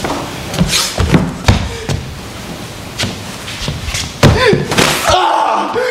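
A series of sharp thuds and slams on a stage floor from an actor's violent movements, the loudest about four seconds in. Near the end a voice cries out in a long, held sound.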